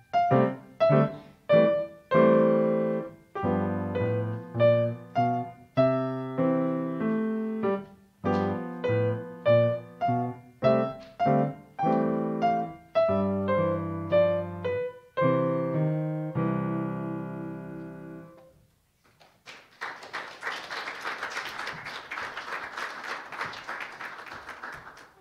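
Grand piano playing a short piece in separate, evenly paced chords and notes, ending on a held low chord that rings away. About a second after it fades, a small audience applauds.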